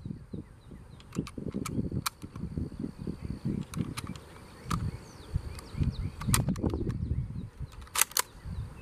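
Metallic clicks of cartridges being thumbed one at a time into a Mosin-Nagant M91/30 rifle's magazine, with two louder clicks close together near the end. Wind rumbles on the microphone throughout.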